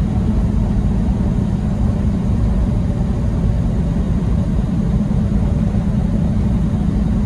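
Steady low rumble inside a semi-truck's cab at highway speed: the diesel engine running with tyre and road noise.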